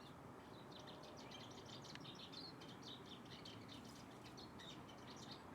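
Small songbird twittering: a fast, continuous run of short high chirps beginning about half a second in, faint over steady background noise.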